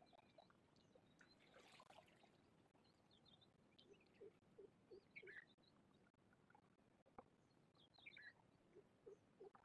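Faint animal calls: scattered short, high chirps, with a run of four or five short lower notes about halfway through and another near the end.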